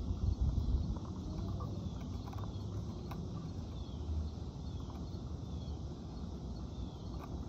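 Outdoor ambience: a low rumble on the microphone, strongest in the first second, over faint high chirps repeating about once a second.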